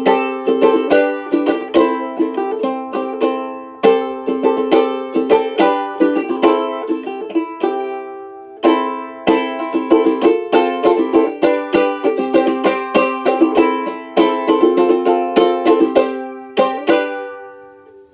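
Tenor banjolele in re-entrant gCea tuning played as a tune: bright plucked notes and chords that die away quickly. There is a short pause about eight seconds in, and it ends on a final chord that rings out and fades.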